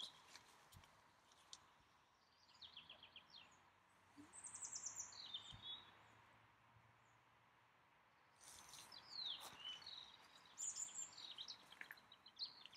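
Songbirds singing faintly in short, rapid trilled phrases, a few bursts spaced several seconds apart, over quiet outdoor background noise.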